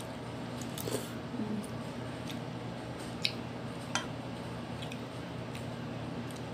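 Chewing and mouth sounds of someone eating soup vegetables and rice, with a few light clicks of a metal spoon against the plate, over a steady low hum.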